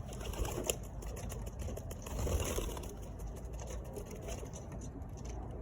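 Quick clattering clicks and rustling as pigeons are grabbed by hand in a loft, with a busier flurry about two seconds in, over a steady low rumble.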